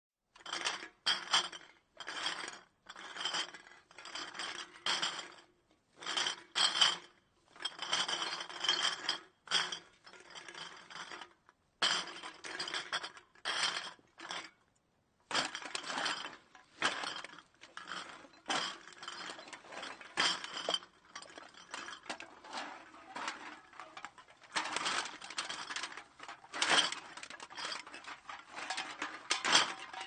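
Empty glass bottles clinking and rattling against each other in irregular clusters with short pauses, heard at a distance.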